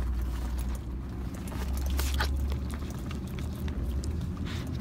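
A dachshund licking soft-serve ice cream from a cup: a scatter of short, wet smacks and laps, over the steady low rumble of a car.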